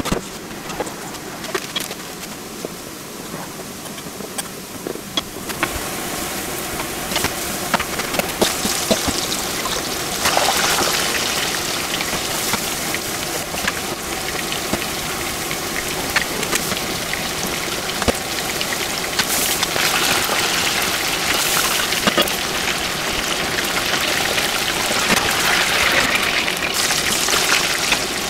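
Chicken pieces deep-frying for karaage, the oil sizzling and crackling steadily, with onions and sausage frying in a wok beside them. The sizzling starts about five seconds in, after a few light clicks, and swells now and then.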